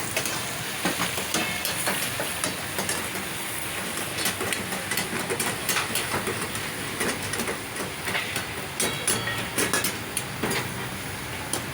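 Steady hissing sizzle, as of karahi cooking over high heat, with frequent sharp metal clinks and clanks.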